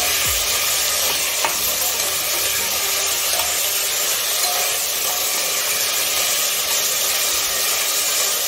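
Cubed vegetables sizzling steadily as they fry in oil in a pressure cooker, stirred with a metal spatula that clinks sharply against the pot once about a second and a half in.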